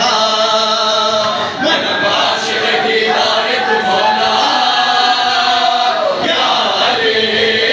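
A crowd of men chanting a devotional lament together in long held lines, each phrase breaking off and starting anew about two seconds in and again about six seconds in.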